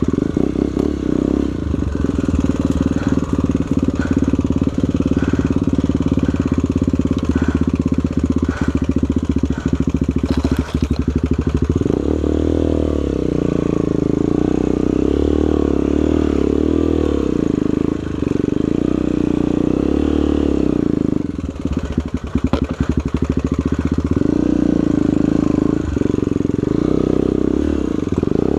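Trail motorcycle's single-cylinder four-stroke engine running under load. From about halfway in, the revs rise and fall again and again.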